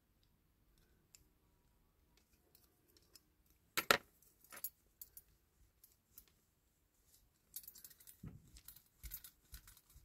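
Small die-cast metal parts of a Dinky Toys fire-escape ladder clicking and clinking as they are handled and pushed back, with one sharp clack about four seconds in and a run of light rattling ticks near the end. The part being worked is stuck and will not come free.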